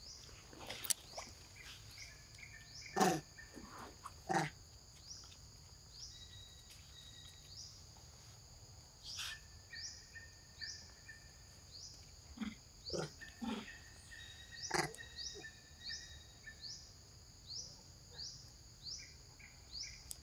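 Forest insects keep up a steady high buzz with short rising chirps about one and a half times a second. Over it come a few short, sharp calls from long-tailed macaques, the loudest about three and four and a half seconds in.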